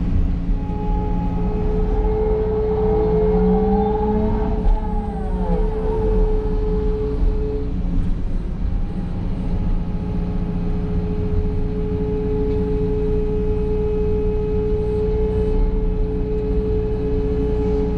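Liebherr R926 crawler excavator running under load, heard from inside the cab: a steady engine drone with a strong steady whine, and about three to six seconds in a tone that rises and then falls as the machine works.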